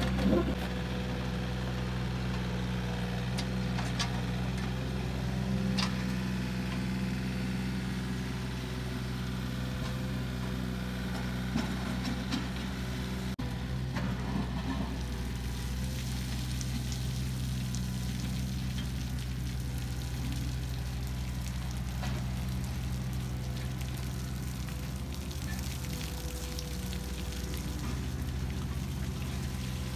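A heavy machine's engine running steadily at a constant speed, with scattered clicks and knocks over it.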